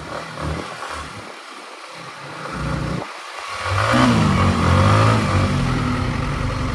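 Yamaha MT-15's single-cylinder engine pulling through traffic. Wind buffets the helmet microphone in gusts for the first half. About halfway through, the engine note climbs as the bike accelerates.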